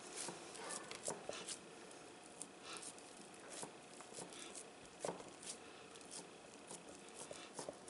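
Faint, irregular squishing and soft patting of hands pressing raw ground-meat meatloaf mixture into a glass loaf pan.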